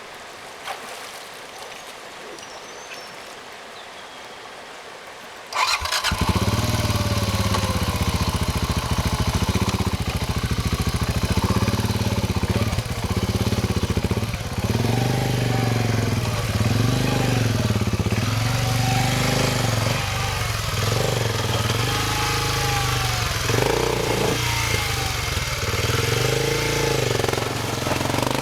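Rushing river water, then about five and a half seconds in a vehicle engine cuts in loudly and revs up and down over and over, as if working through the crossing.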